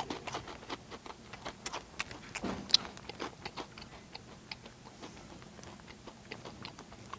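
Takis rolled tortilla chips being chewed loudly with the mouth open: a string of irregular, sharp crunches.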